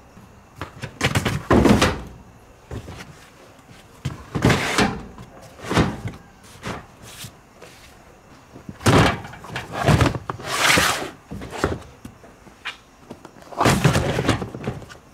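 Large hard-plastic storage bins being slid and set down in a pickup truck bed: about six hollow knocks and scrapes, some sharp, some drawn out as a bin slides across the bed.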